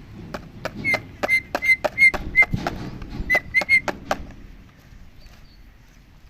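An Indian ringneck parakeet making about a dozen short, sharp clicking peeps, many with a brief whistle-like tone. They come in two quick runs with a short pause between them and stop about four seconds in.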